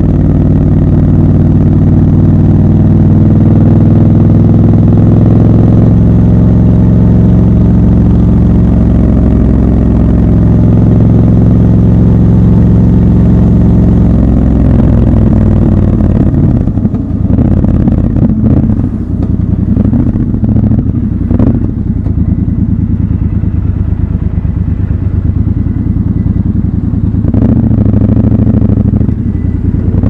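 Triumph Scrambler 1200 XC's parallel-twin engine running at steady cruising revs. Past the halfway point the revs drop and the note turns lower and uneven as the bike slows, with a few sharp clicks or knocks, then picks up briefly near the end.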